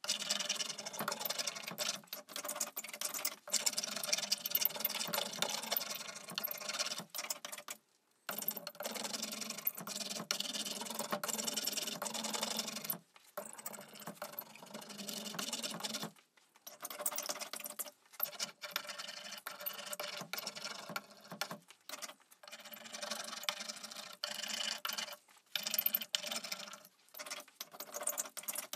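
Rubber ink brayer rolled over a carved wooden relief block, laying on black ink: a crackling hiss in spells of several seconds with short breaks between them.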